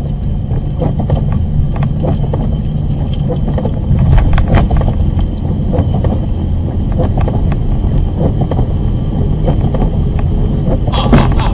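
Car cabin while driving in heavy rain: a steady low rumble of engine and tyres on the wet road, with many scattered clicks of raindrops striking the windshield.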